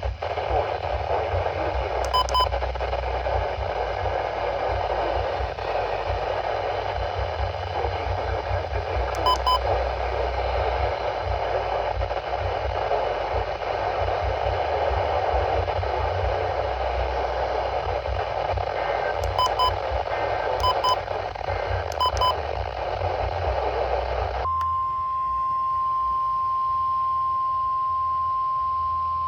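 Weather radio receiver hissing with static, broken by a few brief double beeps. About 25 seconds in, a steady single-pitched tone starts: the 1050 Hz NOAA Weather Radio warning alarm tone that comes before a broadcast warning.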